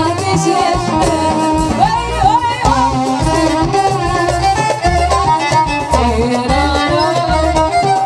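Moroccan chaabi band playing live: keyboard and electric guitar with a steady pulsing bass beat under a bending, ornamented lead melody, mostly instrumental with the singer's voice at most briefly at the start.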